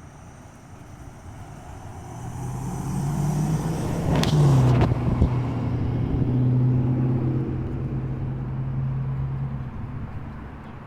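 A car driving past on the street. Its engine hum grows louder, peaks about four seconds in with a drop in pitch as it goes by, then fades away.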